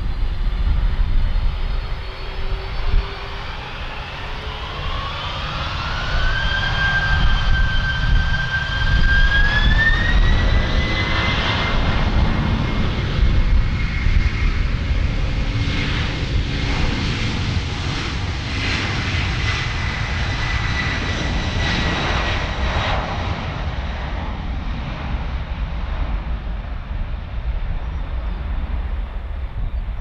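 Boeing 767 jet engines spooling up to takeoff thrust: a whine that climbs in two steps, about four and ten seconds in, then holds high and steady over a deep rumble as the airliner accelerates down the runway.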